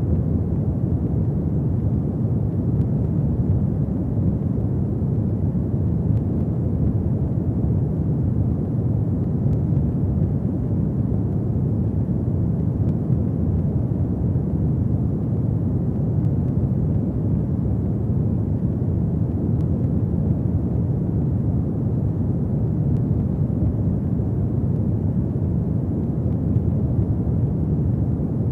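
Fireplace ambience: a fire burning with a steady, low rumbling roar.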